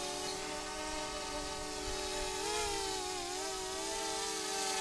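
Quadcopter drone's propellers whining steadily in several tones at once, the pitch rising and dipping briefly about halfway through as the motors change speed. Light wind rumbles on the microphone underneath.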